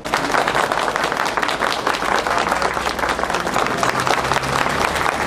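Crowd applauding: dense, steady clapping that starts abruptly.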